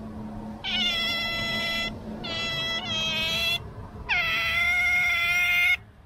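An Asian small-clawed otter giving three long, high, steady whining calls, the last one opening with a downward slide. It is a pet otter's begging whine at feeding time.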